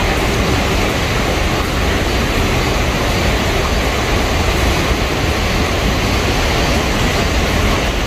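Steady rushing noise of a mountain stream's water flowing over rocks, even and unbroken.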